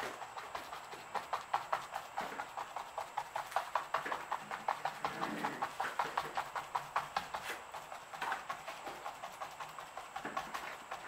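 A paintbrush dabbing acrylic paint onto a canvas to stipple texture: a fast, even run of soft taps, several a second.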